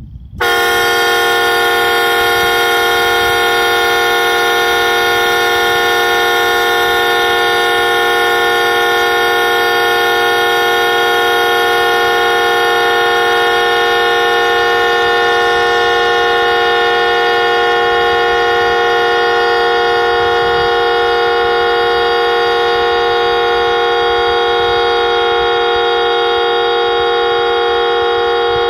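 Viking Horns triple-trumpet train horn blowing one continuous blast, a chord of several steady tones at a constant pitch that starts abruptly. It is a tank dump: the horn is held open to empty its 2-gallon air tank from 120 psi.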